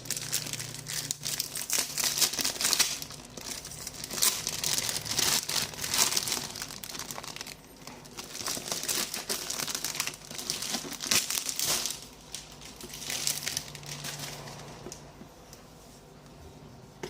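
Package being unwrapped by hand: crinkling and rustling of wrapping in bursts, dying down near the end.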